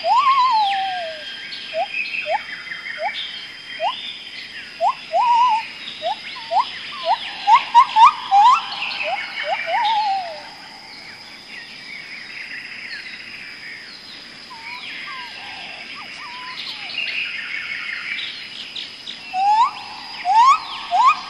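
Birds calling in woodland: runs of short rising whistles, about two a second, each run closing with a wavering falling call. They stop about ten seconds in and start again near the end, over softer birdsong and a steady high insect whine.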